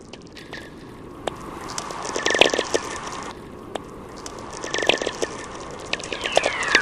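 Crackling sound effects: dense clicks and crackles that swell about two and a half and five seconds in, with a short falling whistle near the end.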